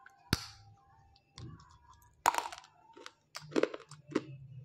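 Teeth biting into a piece of roasted multani mitti (Fuller's earth clay): one sharp snap about a third of a second in, then chewing with several separate crunches, the loudest a little past two seconds in.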